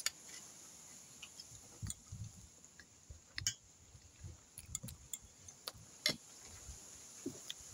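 Forks clinking and scraping against a metal plate, a few sharp clicks spread through, the loudest about three and a half and six seconds in, with soft chewing between.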